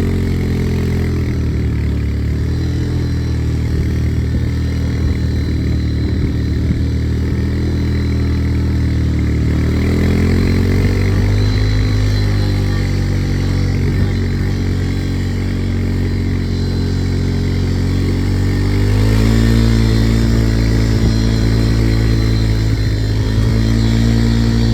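ATV engine running under varying throttle, its pitch rising and falling, then stepping up higher and louder about three-quarters of the way through.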